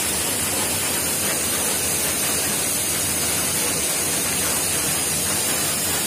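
Steady, even rushing of a waterfall's falling water, unchanging throughout.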